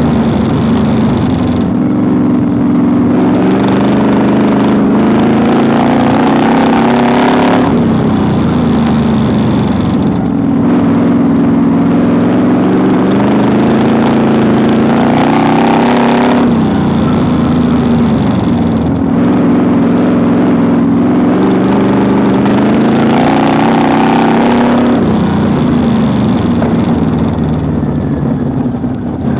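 Vintage modified dirt-track race car's engine heard from inside the cockpit, climbing in revs along each straight and dropping sharply as the driver lifts for the turns, about every eight to nine seconds, lap after lap. The revs fall off near the end.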